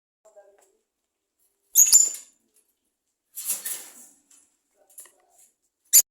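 Birds making short, harsh, raspy bursts of sound: two loud ones about a second and a half apart, fainter scraps in between, and a sharp click near the end.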